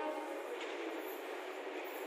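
An approaching express train in a gap between blasts of its electric locomotive's horn. The horn dies away at the very start, leaving a steady rushing noise from the oncoming train.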